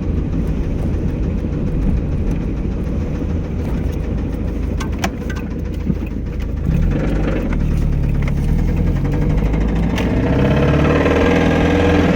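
1994 Mazda Miata's 1.8-litre four-cylinder engine running with a knocking noise, which the owner cannot yet tell apart as rod knock or a bad lifter. It idles, then is revved up about seven seconds in and higher again near the end.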